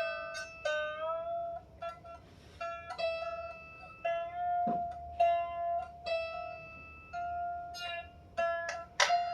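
A string on a 16-string lyre harp plucked over and over during tuning, the same note about once a second, its pitch sliding up a little as the tuning pin is turned. The strings are new and still stretching, so they are slow to hold pitch.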